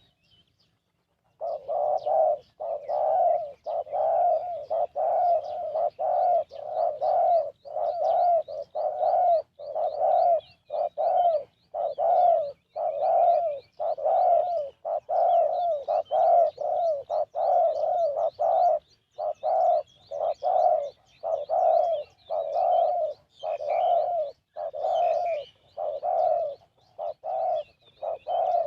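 Spotted dove cooing, a long unbroken run of repeated coo notes at a little over one per second, starting about a second in. A small bird chirps faintly and thinly in the background.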